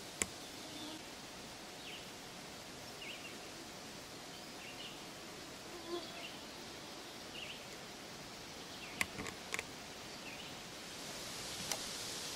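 Quiet woodland ambience with faint short bird chirps every second or so, broken by a few sharp clicks, three of them close together about nine seconds in. A steady hiss grows louder near the end.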